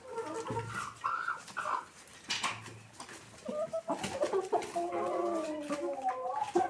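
Chickens clucking: short calls in the first half, then a longer, wavering call from about four seconds in.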